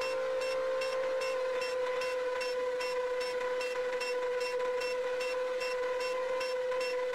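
FPV quadcopter's four Emax 2807 1300kv brushless motors and propellers whining at a steady pitch in cruising flight, heard from the onboard camera, with a faint ticking about three times a second.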